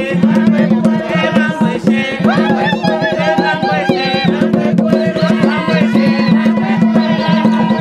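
Traditional Zambian drum music: a fast, steady hand-drum rhythm with voices singing over it.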